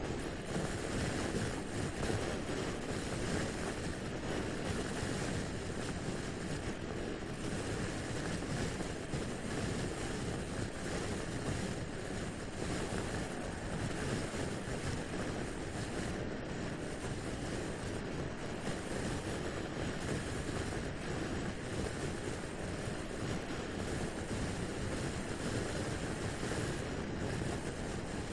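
Steady, even wind rush over a GoPro action camera's microphone while riding a Honda SH350i scooter at motorway speed.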